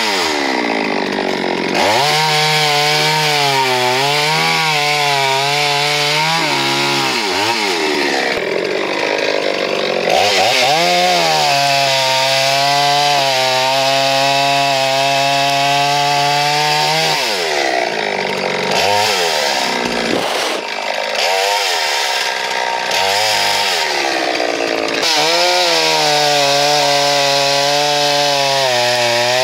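Farmmac F380 72cc two-stroke chainsaw cutting through logs at full throttle. In each cut it holds a steady, lower engine note under load, and between cuts it revs up and down. It makes about three long cuts in a row.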